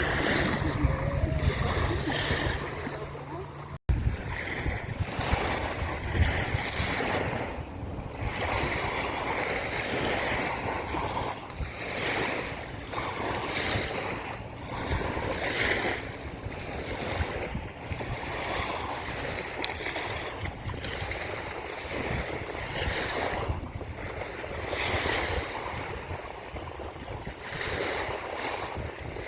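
River waves washing onto a sandy beach in repeated surges, with wind on the microphone. A low steady hum runs under the first four seconds and stops at a sudden cut.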